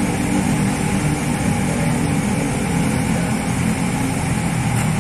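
Coach bus diesel engine idling steadily with a low, even rumble.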